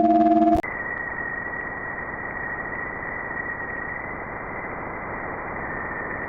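A space-recording sonification: a steady low chord cuts off about half a second in. It gives way to a dull, even static hiss with a thin steady whistle held above it.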